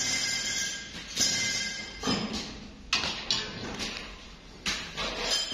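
Background music with percussive hits.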